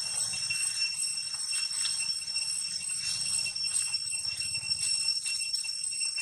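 A steady high-pitched ringing drone with overtones, holding one pitch, over a low hum, with a few faint rustles.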